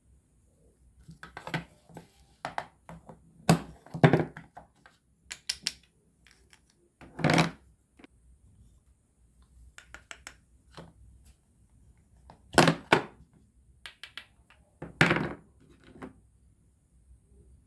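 Wooden toy food pieces and wooden toy tongs knocking and clattering as they are handled, picked up and set down. The knocks come at irregular intervals, with a few longer, louder ones.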